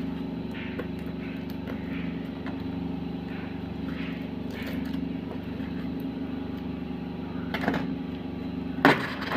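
Fingers and a knife blade scratching and picking at packing tape on a cardboard parcel, with two louder scrapes or rips near the end, over a steady low hum.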